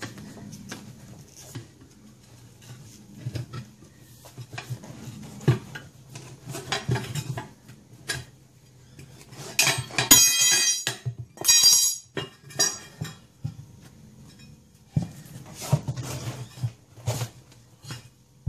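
Irregular metal clinks and knocks from hand tools against a ride-on mower's steel wheel rim while the tyre is worked off the bead, with a couple of short harsh scraping squeals near the middle.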